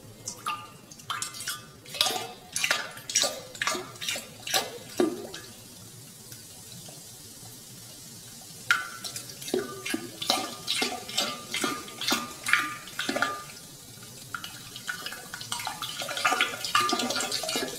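Water dripping and splashing in quick, irregular drops that come in spells with short pauses between them, growing denser near the end.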